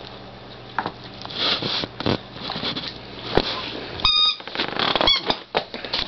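A puppy playing with its squeaky toy pig: scuffling, rustling and knocking noises, with a short squeak about four seconds in and a second, wavering squeak about a second later.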